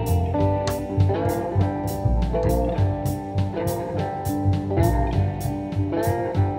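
Background music: a guitar-led track over a steady drum beat.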